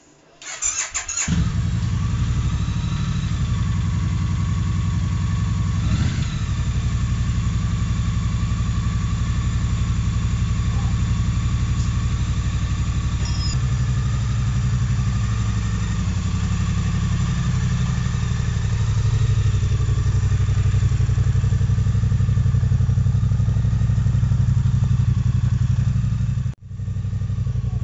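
Triumph Street Cup's 900 cc parallel-twin motorcycle engine started about half a second in and catching, then idling steadily, its note shifting slightly partway through, with a brief break near the end. It is run after an oil change to circulate the fresh oil and warm the engine.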